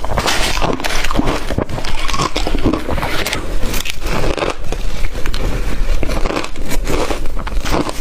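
Close-miked biting and chewing of blender-crushed ice: dense, continuous crunching and crackling with no pauses.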